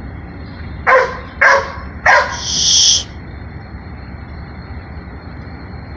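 A dog barking three times in quick succession, about half a second apart, followed at once by a brief high hissing noise.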